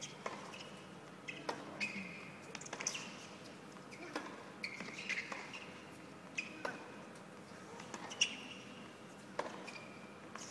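A tennis rally heard faintly from high in the stands: the ball struck by rackets and bouncing, roughly once a second, with players' shoes squeaking sharply on the hard court between the strikes.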